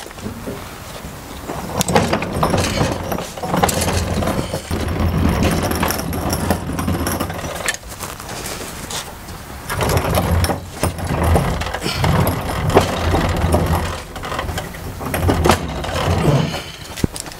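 A power driver runs in two long stretches of several seconds each, with metal clicks in between, as it torques down the bolts that fasten the miter saw stand to the table.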